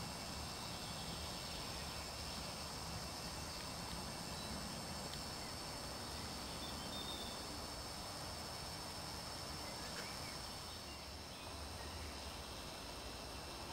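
Steady outdoor riverside background noise with a few faint, brief bird chirps.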